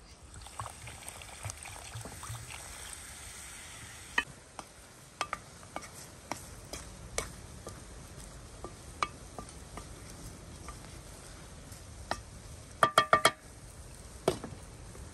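Liquid poured from a ceramic jug into a hot pot over a wood fire, sizzling for the first four seconds and stopping abruptly. Then a wooden spatula stirring and knocking lightly in a pot of steamed wheat. Near the end come four quick ringing clinks, and then one more clink as the glass lid is lifted off the pot.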